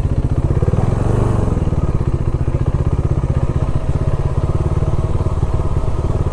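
Motorcycle engine running with a fast, even beat, briefly swelling about a second in.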